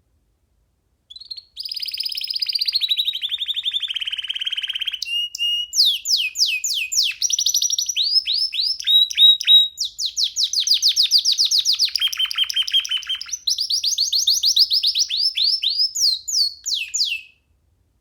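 Domestic canary singing a long unbroken song of rapid trills and repeated sweeping notes. It starts about a second in and stops shortly before the end.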